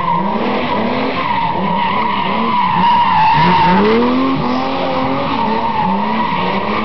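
Opel car doing a burnout in circles: the engine revs up and down while the tyres squeal without a break. The sound peaks about three seconds in.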